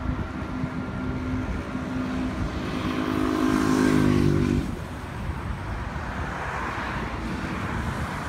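A passing road vehicle's engine hums, growing louder over about four seconds and then cutting off abruptly. Steady traffic and wind noise run underneath.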